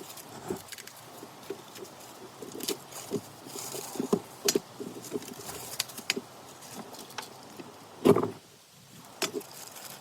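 Irregular metal clicks and knocks of hand tools and hardware being worked on a round baler's pickup, as bands are bolted on, with one louder knock about eight seconds in.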